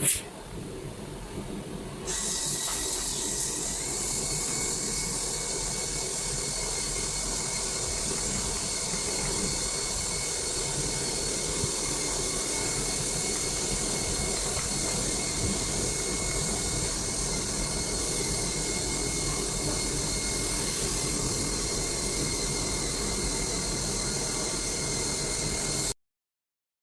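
CNC machine running with a steady hiss, joined a few seconds in by a high, steady whine; it cuts off suddenly near the end. A sharp click at the very start is the loudest moment.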